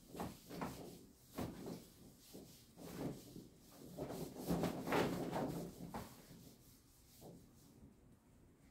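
Handheld whiteboard eraser rubbing across a whiteboard in a run of quick back-and-forth strokes, loudest about halfway through and fading near the end.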